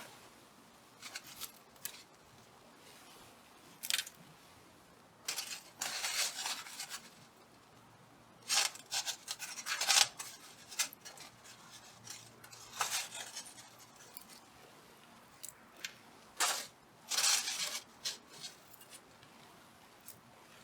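Irregular short, crisp snipping and rustling sounds, in clusters of several strokes with quiet gaps between.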